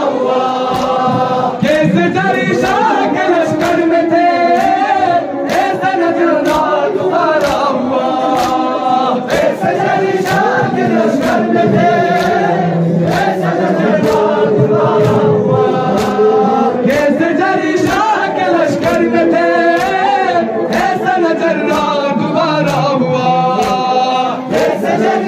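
Crowd of men chanting a Muharram noha in unison, with a steady beat of hand slaps on their chests (matam) keeping time throughout.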